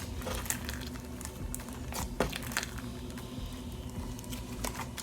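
Clear slime mixed with wax beads being squeezed and worked by hand, giving soft squishes and scattered small clicks and crackles.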